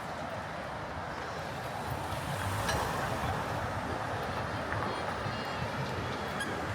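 Steady city street traffic noise from vehicles passing on an avenue, swelling a little about two and a half seconds in.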